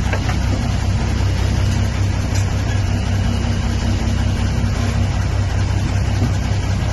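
Vehicle engine running while the vehicle drives through floodwater, heard from inside the cab: a steady low hum under a constant rushing noise of water and tyres.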